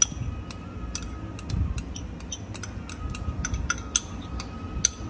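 Metal spoon clinking and scraping against a ceramic bowl while scooping out thick chili shrimp paste: a string of irregular light clicks, some ringing briefly, over a low background rumble.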